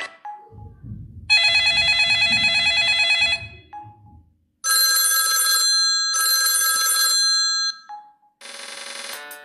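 Samsung GT-S3600 mobile phone's loudspeaker playing telephone-bell style ringtones one after another: a warbling ring for about two seconds over a low rattling buzz, then two ring bursts, and another ringtone starting near the end. Short single beeps fall between them.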